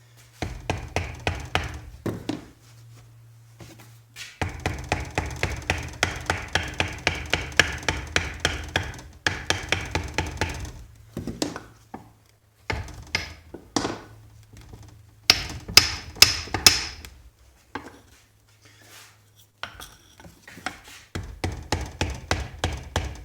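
A mallet hammering on a wooden dowel to drive a stuck part out of an old bench vise. The blows come in runs of about three or four a second, with short pauses between the runs. A few louder, brighter strikes come about two thirds of the way through.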